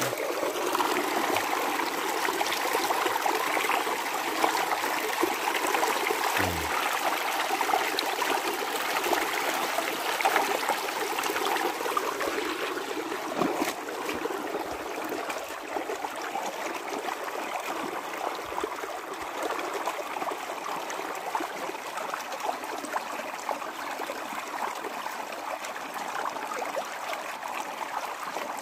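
A shallow rocky stream running: a steady rush of flowing water, a little quieter in the second half.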